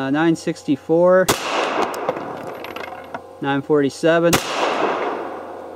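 Two pistol shots from a Beretta 84 Cheetah in .380 ACP, about three seconds apart: one a little over a second in, the other about four and a half seconds in. Each is a sharp crack followed by a fading echo.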